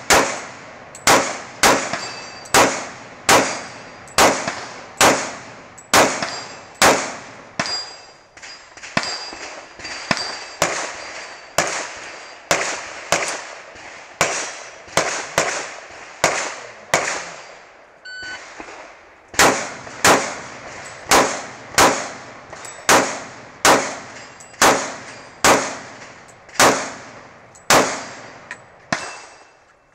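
Glock 30 .45 ACP subcompact pistol firing a steady string of shots, about one a second, each a sharp crack with a short echo and a faint metallic ring after some shots. A short electronic shot-timer beep about 18 seconds in starts a second string of shots at the same pace.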